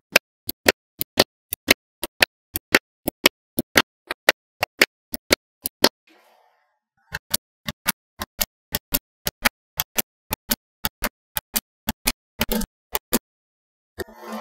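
Small magnetic balls clicking into place one after another, about four sharp clicks a second, with a short break about six seconds in and a brief rustle near the end.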